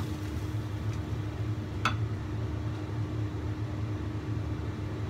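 Steady low mechanical hum in the kitchen with a faint constant tone, as from the gas hob or an extractor fan. A single light tap about two seconds in.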